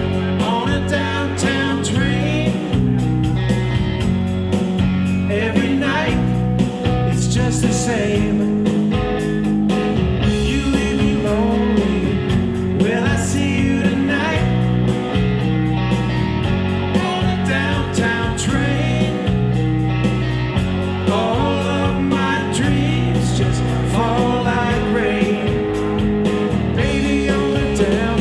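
A live band playing blues-rock on electric guitar and electric bass, with a steady bass line and bending guitar lines.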